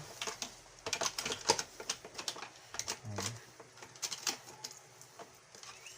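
Irregular clicks and taps of plastic vacuum-cleaner parts and the circuit board being handled during repair, loudest about a second and a half in.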